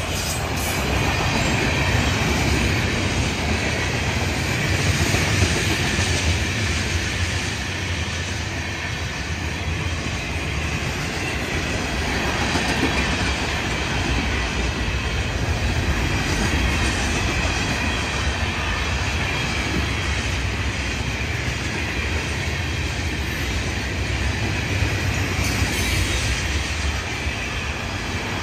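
Florida East Coast Railway freight train cars rolling steadily past at close range: a continuous low rumble and rattle of wheels on rail, with a faint steady high whine from the wheels.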